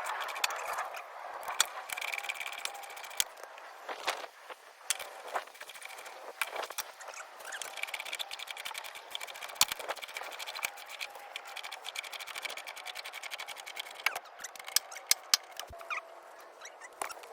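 Irregular clicks, taps and clinks of hand tools and metal parts as a car door is fitted back onto its hinges, with a quick run of louder knocks near the end, over a faint steady background noise.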